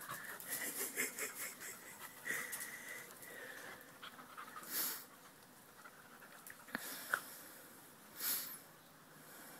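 A dog sniffing and snuffling with its nose down, faint, with two louder breathy snorts about five and eight seconds in.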